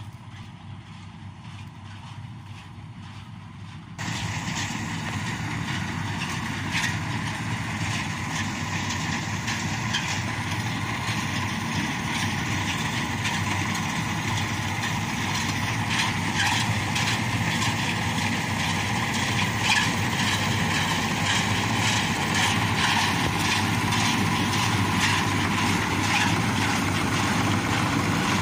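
Bizon Z056 combine harvester running while cutting triticale: a steady diesel engine with the rattle of the machinery. It is fainter at first, turns much louder about four seconds in, and keeps growing louder as the machine comes close.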